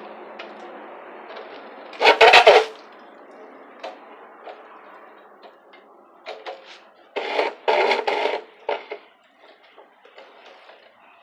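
Plastic bottle flapping against the spokes of a spinning bicycle wheel: a rapid clatter that fades as the wheel slows. A loud short clatter comes about two seconds in, and several more come near the end.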